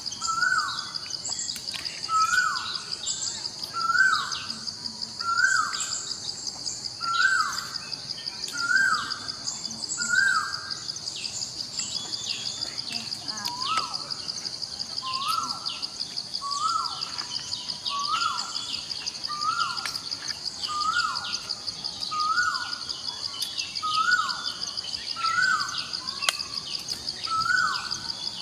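Natural ambience: a steady, rapidly pulsing high insect drone, with a short call that rises and falls, repeated about every second or so with a brief pause midway, and scattered bird chirps.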